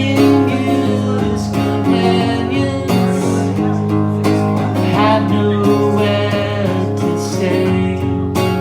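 Acoustic guitar strummed steadily, with a man's voice singing over it in phrases that come and go.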